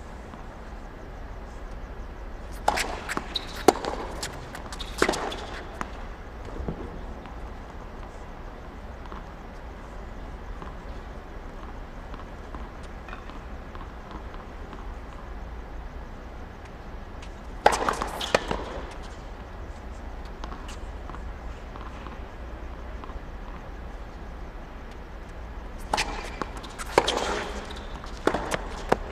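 Tennis balls struck by rackets and bouncing on a hard court, in three short runs of sharp pops, over a steady low hum.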